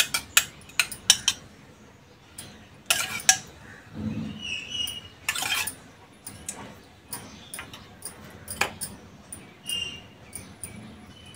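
A metal spoon clinking and scraping against a small stainless-steel bowl as thick sauce is scooped and spread, giving many short, sharp ticks at irregular intervals and a few brief squeaks.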